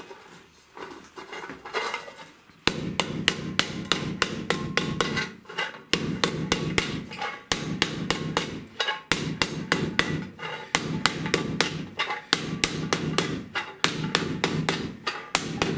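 Tinsmith's hammer tapping rapidly around the rim of a galvanized steel pipe cap, driving the edge and swage bead down flat to close the seam. The blows come about four to five a second in runs with short pauses, starting a few seconds in.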